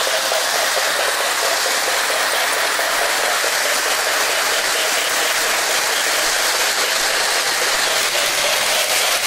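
Lionel O-gauge Chicago & Alton Hudson locomotive pulling its passenger cars on FasTrack, running steadily with a continuous rolling hiss and whir from wheels and motor.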